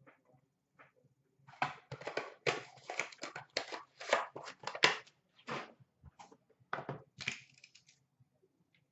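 Trading-card packaging being handled and torn open: a dense run of crinkling, crackling rustles from about a second and a half in to about seven and a half seconds in.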